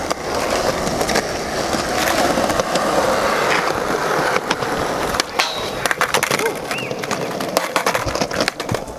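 Skateboard wheels rolling over rough concrete, broken by several sharp clacks of the board striking the ground, the loudest about five seconds in and a cluster near the end.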